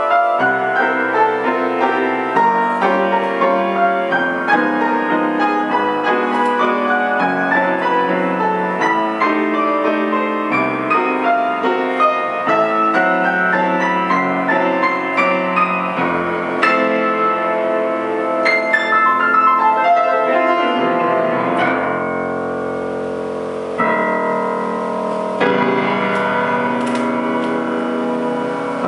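Grand piano played solo in a classical style, a steady run of notes and chords. About three quarters of the way in, a chord is held and left to fade for a couple of seconds, then a new chord is struck and the playing resumes.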